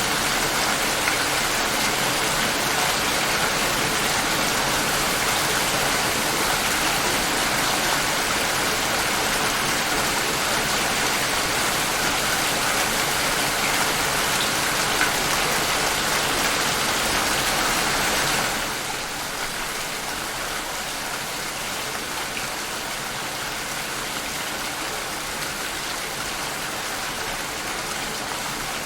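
Steady rain falling, an even hiss of many drops; about two-thirds of the way through it turns a little softer and duller.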